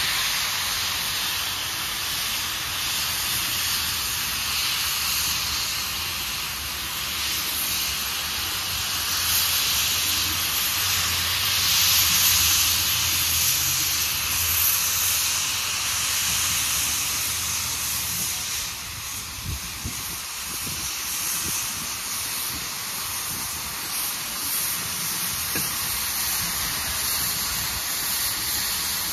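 Steady hiss of escaping steam from Jeddo Coal Company #85, a 1928 Vulcan 0-4-0 steam locomotive, as it moves slowly. The hiss swells in the middle and then eases off.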